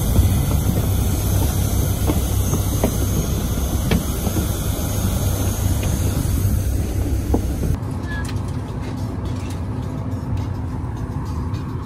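Steady aircraft noise on the apron beside a parked Boeing 737-800, a low rumble with a faint high whine. About eight seconds in it cuts to the quieter, steady hum inside the airliner's cabin, with small clicks and knocks of passengers boarding.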